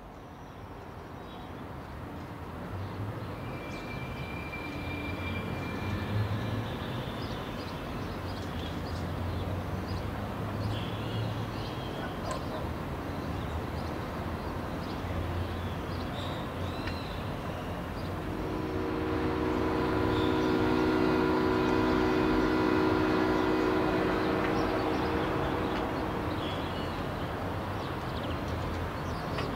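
Outdoor ambience fading in: a steady low rumble with scattered bird chirps. About two-thirds through, a long, low horn note sounds for several seconds.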